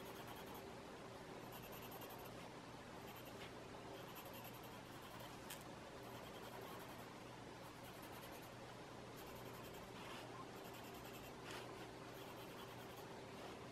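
Faint scratching of an HB graphite pencil stroked over a paper tile, laying down shading in short, repeated strokes.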